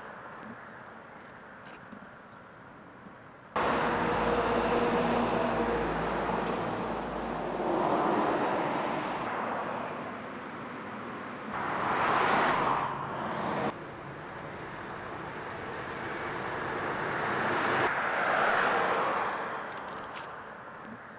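Street sound with cars passing: noise swells up and fades away several times. It jumps up abruptly about three and a half seconds in and drops off suddenly near fourteen seconds, where the sound changes at a cut.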